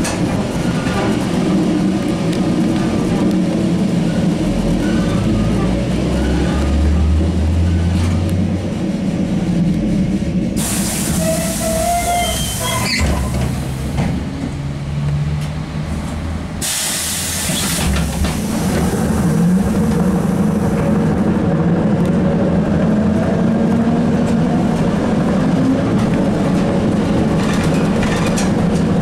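ZiU-682 trolleybus running, a steady low rumble of motor and road noise. Near the middle come two bursts of hiss about six seconds apart, the first lasting about two seconds and the second about one.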